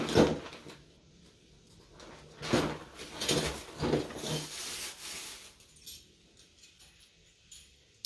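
Woodworking clamps being handled, with a cluster of rattles, clicks and scrapes for about three seconds in the middle, then a few faint ticks.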